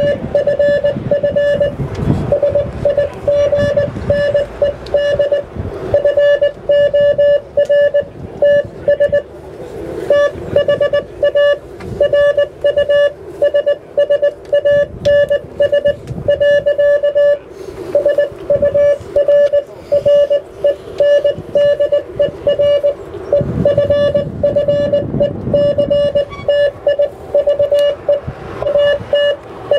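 Morse code: a steady electronic beep keyed on and off in rapid dots and dashes, over a low background rumble.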